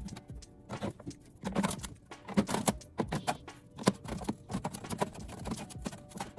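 Irregular clicks, taps and light knocks of containers and packaging being handled and set down, several a second at times.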